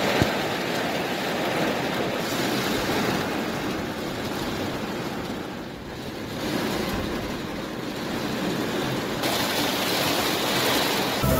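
Heavy downpour of rain beating on a car's roof and windows, heard from inside the car as a steady rushing hiss that swells and eases slightly a few times.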